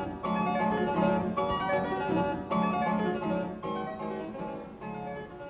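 Background instrumental keyboard music playing quick notes, getting quieter in the second half.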